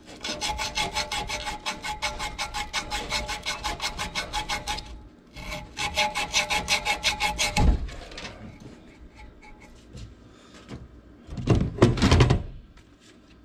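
Rapid, even metallic clicking of a hand tool, like a ratchet, worked at the hub of a squirrel-cage blower wheel, in two long runs. A thump ends the second run, and near the end there is a brief rough scraping clatter.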